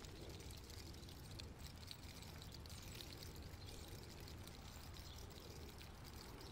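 Near silence: faint room tone, a soft hiss with a low hum underneath.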